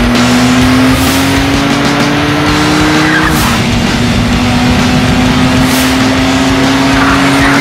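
Kia car's engine pulling hard at high revs at very high speed, its note climbing slowly, dropping back as it shifts up about three seconds in, then climbing again.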